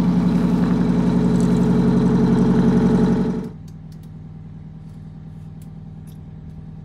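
Blue Bird Wanderlodge's engine idling steadily, freshly started and not yet warm. It is loud heard from outside the bus, then after about three and a half seconds much quieter and muffled as heard inside the cab, with faint ticks.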